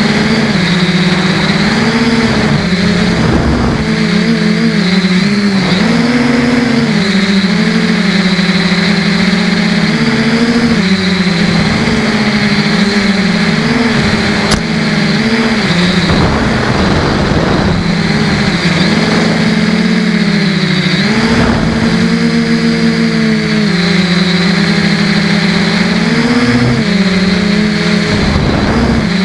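Quadcopter's Emax brushless motors and propellers buzzing steadily, the pitch rising and dipping as the throttle changes, picked up close by the onboard camera. A single click about halfway through.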